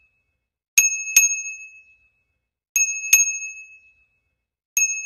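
Bicycle bell rung 'ding-ding', two quick strikes each time, three times about two seconds apart, each ring clear and fading out. There is no traffic or wind noise between the rings, so it sounds like a clean added bell sound effect rather than a bell heard on the street.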